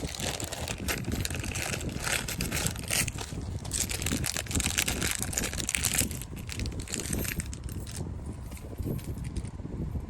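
Handling noise from fitting a computer power supply into its case: irregular rustling, scraping and small clatters, busiest in the first six seconds and dying down near the end.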